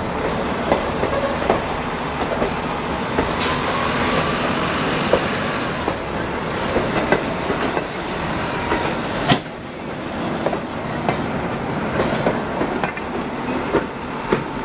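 Passenger coaches rolling past close by, their wheels rumbling and clicking over the rail joints in a steady clickety-clack, with one sharp clank about nine seconds in.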